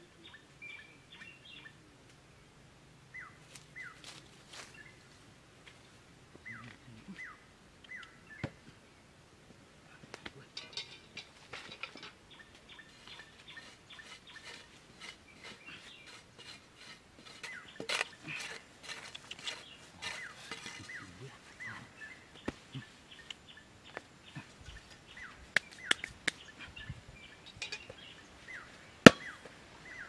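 Small birds chirping in short, quick downward notes. From about a third of the way in, scraping and knocking of hands and a tool working dry soil take over, with one sharp knock near the end.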